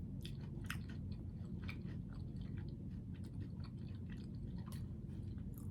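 Close-miked chewing: a person eating, with scattered soft wet mouth clicks over about five seconds.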